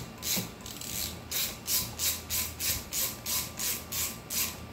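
Ratchet wrench swung back and forth to drive a valve spring compressor on a cylinder head, compressing an LS6 beehive valve spring: a steady run of short raspy ratchet strokes, about three a second.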